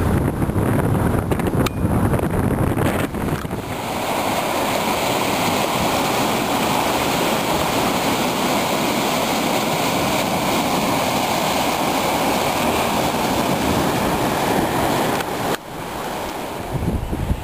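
Ocean surf breaking and washing in among shoreline rocks, a steady rush of churning water and foam. For the first few seconds, where small waves run up a sand beach, wind buffets the microphone with a low rumble. The sound drops and changes about a second before the end.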